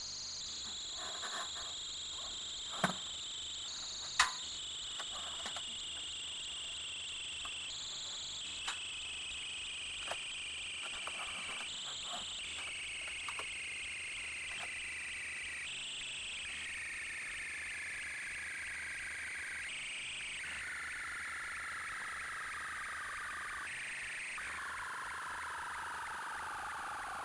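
A high, thin whine made of several tones together, sliding slowly down in pitch and bumping up a little about every four seconds. Two sharp clicks come about three and four seconds in.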